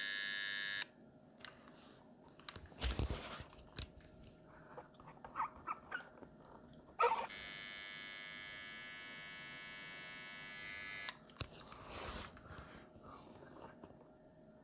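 Butane soldering torch hissing steadily, heating a glue stick; a first burst of hiss stops just under a second in. After small handling clicks and a dull thump, the torch is lit again with a sharp click about seven seconds in, hisses steadily for about four seconds and is shut off with a click.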